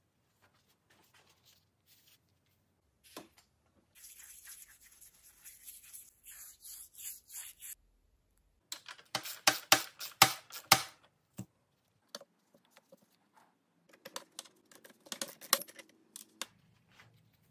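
Metal parts and hand tools on a motorcycle front fork being taken apart: a stretch of rhythmic scraping, then a run of loud sharp metallic clicks about halfway through as a 30 mm socket is worked on a fork fitting, and more scattered clicks and knocks near the end.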